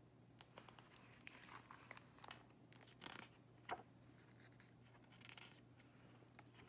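Faint rustling and soft clicks of a hardcover picture book being opened and its pages turned by hand, the loudest page sound a little under four seconds in.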